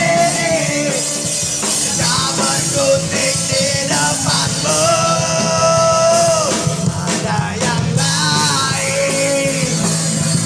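Rock band playing live through a PA: sung rock vocals over amplified electric guitar, with one long held sung note around the middle.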